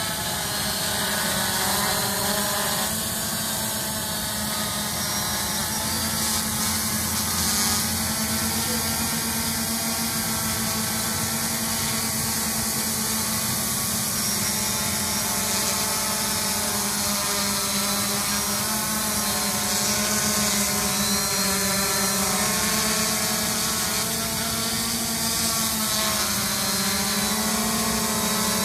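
Multirotor drone's propellers and motors buzzing steadily in flight, the pitch drifting up and down as the motors adjust speed to hold position.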